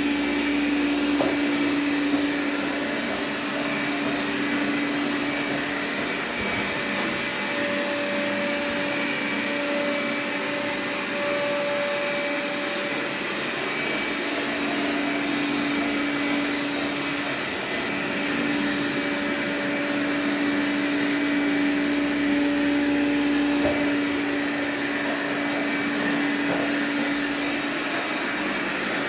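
Xiaomi Mi Robot Vacuum Mop running steadily, its suction fan giving a continuous whirring noise with a low hum that drops out and comes back a few times.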